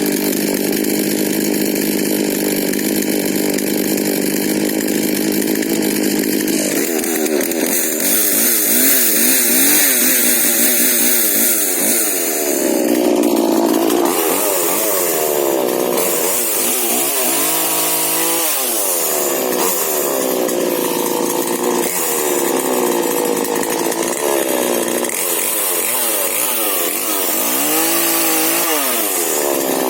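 Husqvarna 125 40cc mini chainsaw's two-stroke engine running, steady for the first several seconds, then revving up and down over and over while pruning shrub branches.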